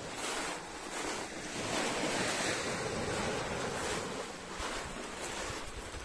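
Sea surf: waves washing onto the shore, the wash swelling to its loudest about two seconds in and then easing back.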